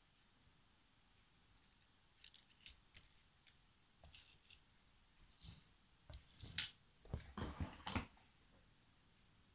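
Small die-cast toy cars being picked up by hand: light clicks and taps from about two seconds in, then denser clattering and rustling from about six to eight seconds in, with the sharpest click in the middle of it.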